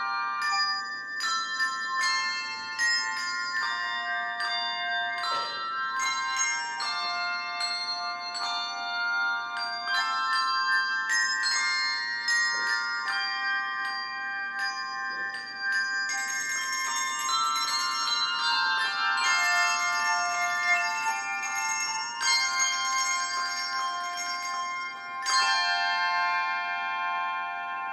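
Handbell choir playing a piece: struck handbells ringing in overlapping melody notes and chords, fuller from about halfway through, with a final chord ringing and fading away near the end.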